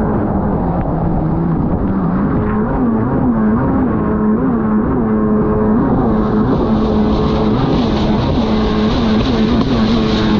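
Racing snowmobile engine running steadily, its pitch wavering up and down about twice a second.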